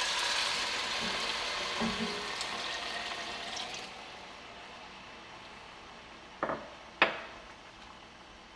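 Chicken broth poured from a glass measuring cup into a hot enameled Dutch oven of sautéed turkey wings and vegetables: a pouring, sizzling sound that dies away after about four seconds. Then two sharp knocks, the second louder.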